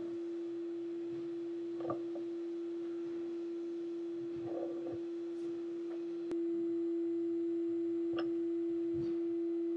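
A steady, single-pitched hum sounds throughout, the loudest thing present. Over it come a few faint knocks and clicks as a hand arbor press is worked to seat a brushless motor's shaft and the motor is handled.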